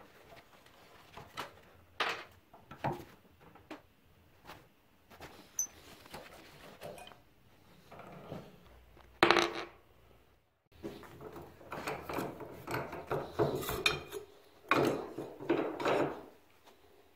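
Scattered metal clanks and knocks as a bench vice is unwound and a rusty steel mower part is handled and lifted out of its jaws. One sharp knock about nine seconds in is the loudest, and a run of denser clattering follows near the end.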